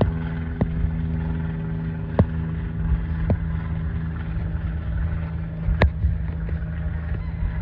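Cessna 172M Skyhawk's four-cylinder Lycoming piston engine and propeller droning steadily as the plane flies overhead. Four short sharp clicks stand out over the drone, the loudest just before the end.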